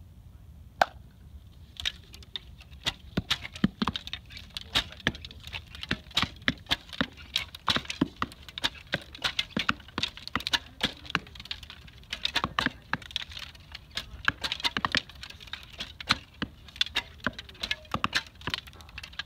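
Several archers shooting traditional bows in quick succession: a rapid, irregular run of sharp snaps as bowstrings are released and arrows leave and strike, several a second, over a low rumble.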